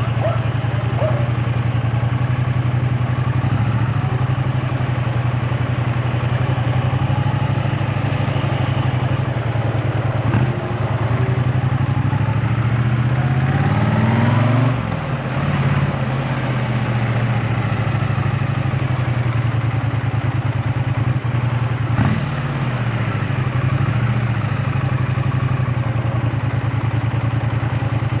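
A Triumph Bonneville T100's 900 cc parallel-twin engine running steadily under way, with road and wind noise. About halfway through the revs climb, the sound dips briefly, and the revs fall away; the pitch shifts again later.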